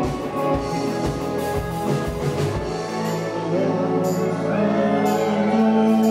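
Live indie rock band playing: electric guitar, bass and a steady drum beat. The drums stop about halfway, leaving long held chords.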